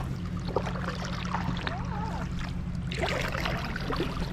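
Water splashing and trickling around kayaks, with scattered small knocks and splashes over a steady low rumble.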